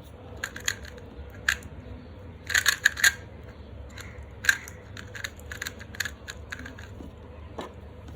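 YJ MGC Elite 2x2 magnetic speed cube being turned fast during a speed solve: a run of sharp plastic clicks and clacks as the layers snap round. The turns come thickest in a quick flurry about a third of the way in, then scattered, stopping shortly before the end.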